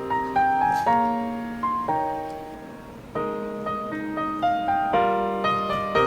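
Background piano music: gentle piano chords and melody notes, each struck and left to fade, with a brief softer pause about three seconds in.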